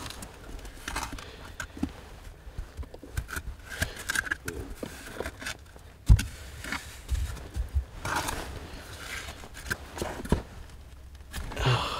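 Hand digging in a privy pit: irregular scraping and small clicks of soil, rubble and glass being worked loose, with one sharper knock about six seconds in.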